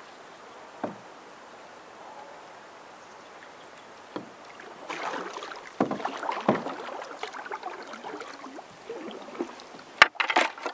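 Double-bladed paddle strokes splashing in lake water as a Wenonah Wee Lassie solo canoe comes up close, busiest from about five seconds in, with a few single knocks. A cluster of sharp knocks comes near the end.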